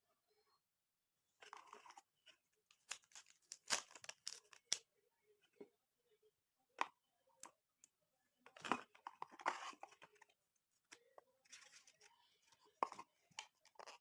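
Faint handling of a smartwatch's packaging being unboxed: scattered clicks, taps and rustles of cardboard and plastic, with brief tearing.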